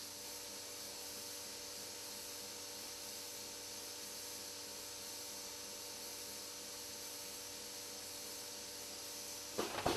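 Faint steady hiss with a light hum, then, about half a second before the end, the automatic easel hinge machine suddenly starts cycling with a loud mechanical clatter.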